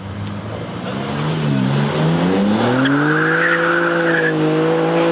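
Single-turbo BMW M3 G81 Touring's straight-six revving up and held at steady high revs, with the tyres squealing for a second or two midway.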